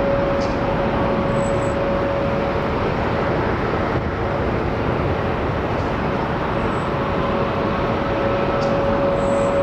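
Boeing 747-400's four jet engines at takeoff thrust as the airliner lifts off and climbs: a loud, steady rush of jet noise with a steady tone running through it, which fades a little in the middle and comes back near the end.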